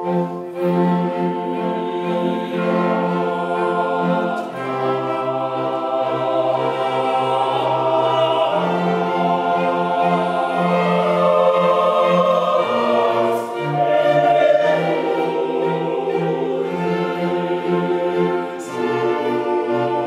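Mixed choir singing with a string orchestra in a Baroque sacred choral piece, voices and bowed strings holding chords over a bass line that steps from note to note.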